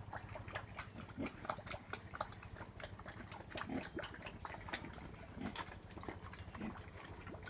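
Pigs grunting: a fast, irregular run of short, faint sounds.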